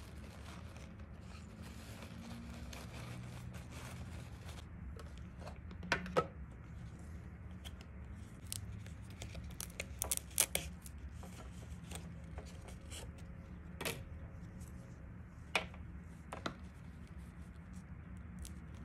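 Small objects being handled: scattered sharp clicks and taps, several bunched together about halfway through, over a steady low hum.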